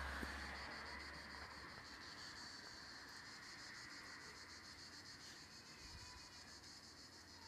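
Faint, steady insect chorus: a high, rapidly pulsing buzz. A soft low rumble sits under it for the first second and a half.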